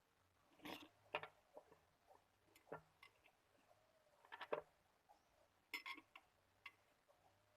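Faint, scattered clicks and light taps of small tools and metal parts being handled, a few at a time, during two-stroke trimmer engine work.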